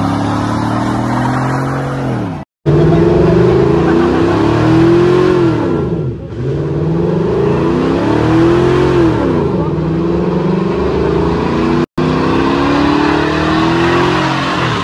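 Lowered pickup truck's engine revved hard during a burnout, its pitch climbing and falling again and again as the rear tyres spin in smoke.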